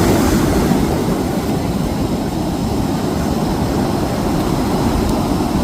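Steady low rushing noise of wind and ocean surf, with no distinct events, easing slightly after the first second.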